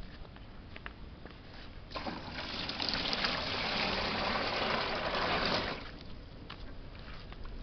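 Water poured from a cut-open plastic container into a styrofoam box. It splashes steadily for nearly four seconds, starting about two seconds in and stopping suddenly just before six seconds.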